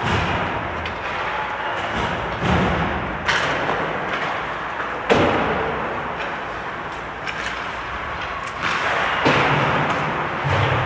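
Ice hockey rink during play: a series of sharp knocks and thumps from pucks and sticks striking the boards, each echoing in the arena, over a steady background hum. The sharpest knock comes about halfway through.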